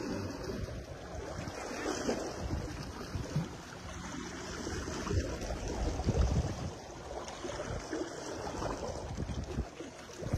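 Wind buffeting the microphone in irregular low gusts, over the wash of sea surf.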